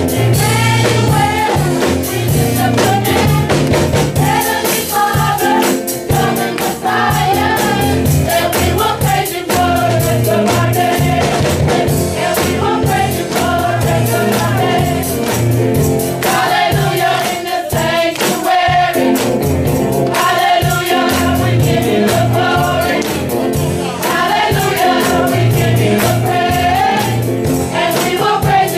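Gospel music: a choir singing over instrumental accompaniment with a steady beat.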